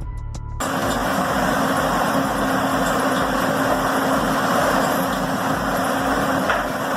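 Heavy forestry machine running steadily: a dense, continuous mechanical noise with a steady hum underneath, cutting in suddenly about half a second in after the tail of music.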